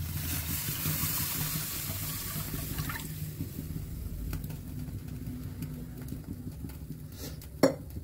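Raw milk poured from a steel pot into a kadhai, a steady splashing pour that stops about three seconds in. A single sharp knock near the end.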